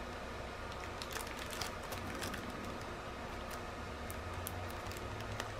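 Faint crinkling and light clicking of small plastic zip bags of crystal diamond-painting drills being handled and pressed shut, over a low steady hum.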